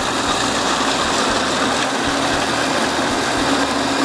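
Kova Kraser 3L electric food chopper running steadily, its blades coarse-chopping shallots, garlic and chillies with no water added.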